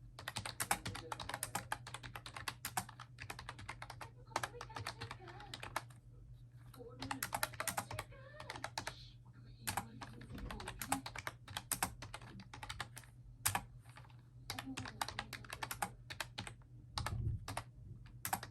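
Typing on a Bluetooth and cable backlit keyboard: quick runs of key clicks with short pauses between them, over a steady low hum.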